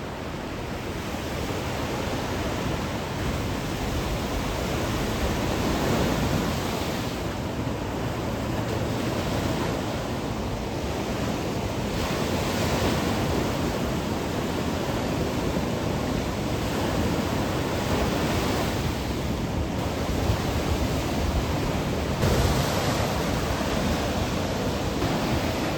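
Ocean surf from a typhoon swell breaking and washing up the beach, the rush swelling every few seconds as each wave comes in, with some wind on the microphone.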